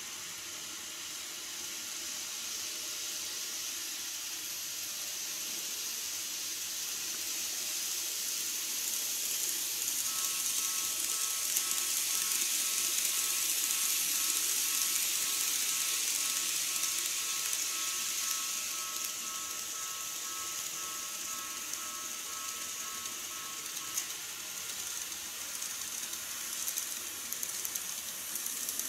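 KATO model trains running on their track: a steady high hiss of wheels and small motors that swells through the middle as a train passes close. A thin two-note motor whine comes in about a third of the way through and fades after the middle, and light clicks of wheels over rail joints come near the end.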